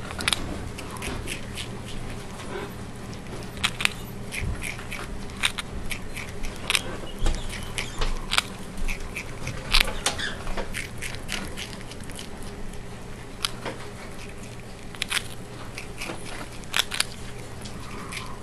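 Prairie dog gnawing a graham cracker: many short, crisp crunches and nibbles at an irregular pace, a few louder than the rest.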